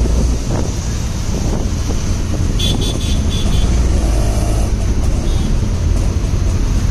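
Auto-rickshaw riding through city traffic: the three-wheeler's engine and road noise make a steady heavy rumble. A horn sounds several quick short beeps about three seconds in.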